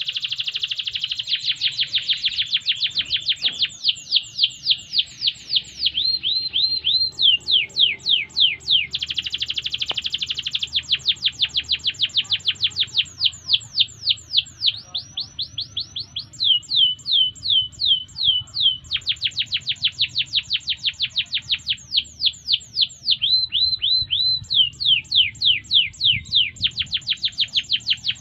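Domestic canary singing: a continuous song made of fast trills, each a run of quickly repeated down-sweeping whistled notes, switching from one trill type to another every few seconds with only brief breaks between them.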